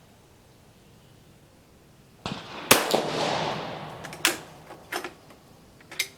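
A single shot from an Italian Vetterli 1870/87/15 rifle converted to 6.5 mm Carcano, firing a light, low-pressure cast-bullet load, comes about two and a half seconds in with a long echoing decay. A few short sharp metallic clicks follow as the bolt is worked.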